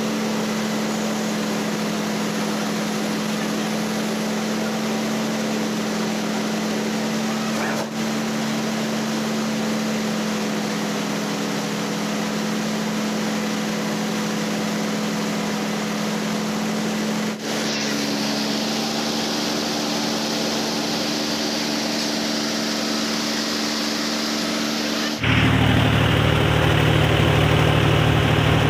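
Tractor-driven rice mill (huller and double-jet polisher) running with a steady mechanical drone. About 25 seconds in, this gives way suddenly to a louder, deeper tractor engine running close by.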